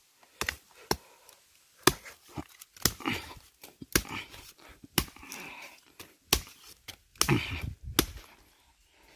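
Knife blows chopping into a young bamboo shoot at ground level: sharp chops about once a second, with rougher scraping noises between.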